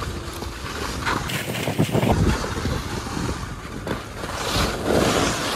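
Skis sliding and scraping over snow, with wind rushing over the microphone; the rush swells twice, about a second in and again near the end.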